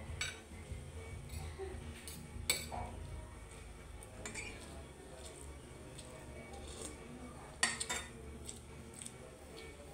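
Metal spoon and fork scraping and clinking against a ceramic plate while scooping up fried rice, with a few sharper clinks, the loudest about two and a half seconds in and just before eight seconds in.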